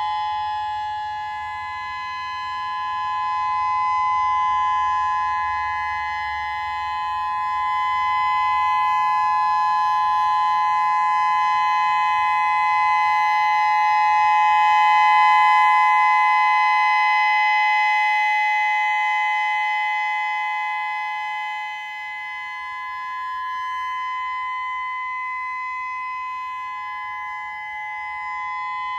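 Whelen WPS-3000 electronic outdoor warning siren sounding a steady tone during its scheduled test: two close pitches held together without rising or falling, loud throughout, swelling and fading slowly in volume.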